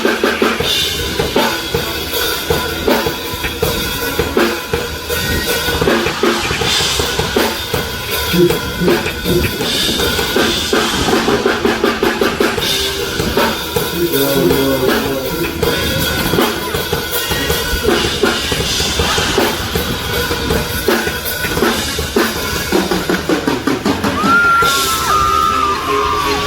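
Live band playing through stage loudspeakers at a sound check, the drum kit loudest: a steady beat of kick and snare under pitched instruments. Near the end a high note slides up and down.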